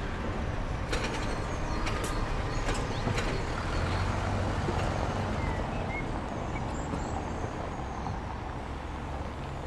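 Outdoor street ambience: a steady, noisy rumble of distant traffic or machinery. A few sharp clicks come in the first three seconds, and faint short chirps are heard now and then.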